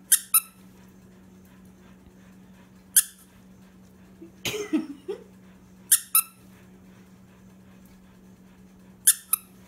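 Squeaker inside a green plush dog toy being squeezed: short, high-pitched squeaks in pairs and singles, roughly every three seconds. A brief lower, gliding sound comes about halfway through.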